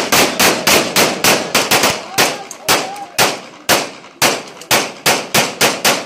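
A rapid series of loud, sharp bangs, about four a second and unevenly spaced, each with a short ringing tail, going on without a break.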